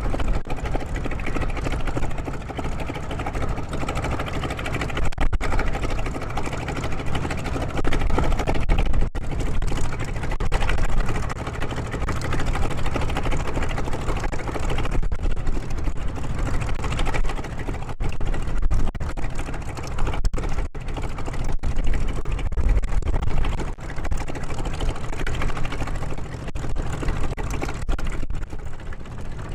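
Radial piston engines of a P-47 Thunderbolt (18-cylinder Pratt & Whitney R-2800) and an FM-2 Wildcat (nine-cylinder Wright R-1820) running steadily on the ground, propellers turning.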